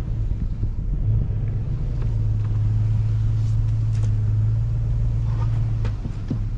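Toyota Tundra pickup's engine pulling under load as the truck drags a bundle of trees on a strap through snow, heard from inside the cab as a steady low drone.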